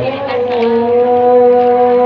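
A reciter's voice holding one long, steady note in melodic Quran recitation (tilawah), after a brief wavering turn at the start.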